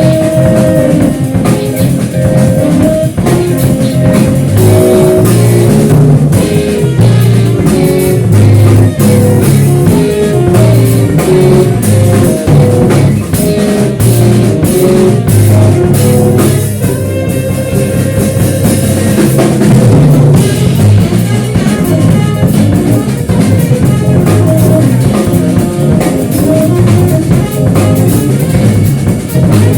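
A rock band playing live, drum kit and guitar, in an instrumental passage with no singing. The drumming thins out briefly about 17 seconds in.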